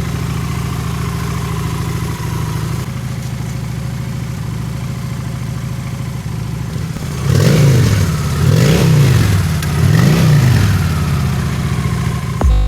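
Honda Shadow motorcycle's V-twin engine idling steadily, then revved three times, each rev rising and falling back, about a second and a half apart.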